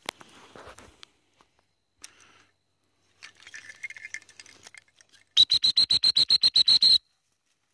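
A dog-training whistle blown as a fast trill: about fourteen short, shrill, evenly spaced toots packed into about a second and a half, starting a little past halfway. Before it, only faint rustling.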